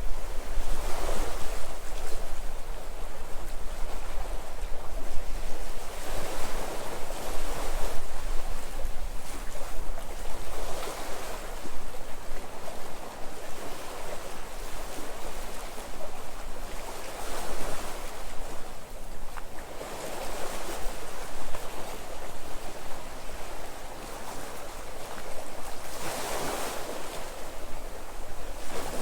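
Sea waves breaking on the shore and washing back, with swells about every four to six seconds and the largest near the end. A low rumble of wind on the microphone runs underneath.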